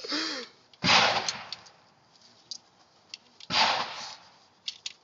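Two gunshots about two and a half seconds apart, each a sharp crack with a short echoing tail, with a few faint clicks between them.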